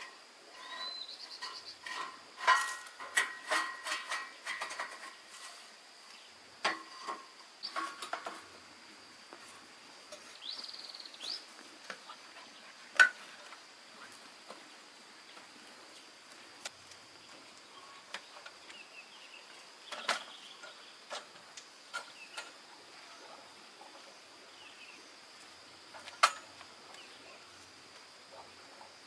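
Scattered metallic clinks and knocks: a quick run of them with short ringing a couple of seconds in, then single knocks every few seconds. Under them a steady high-pitched insect drone continues.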